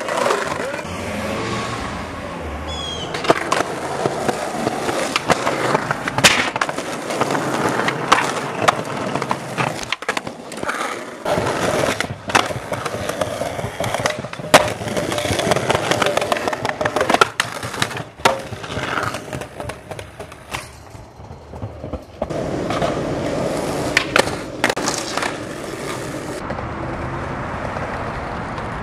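Skateboard wheels rolling over brick cobbles and concrete pavement, broken by many sharp clacks of tail pops and board landings.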